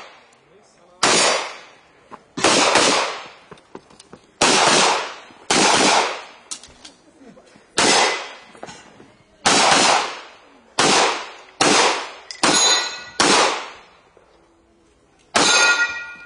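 Handgun shots, about eleven in all, fired singly at uneven gaps of one to two seconds, then a faster run of four about two-thirds of a second apart, and one last shot after a pause of about two seconds. Each shot has a short echoing tail.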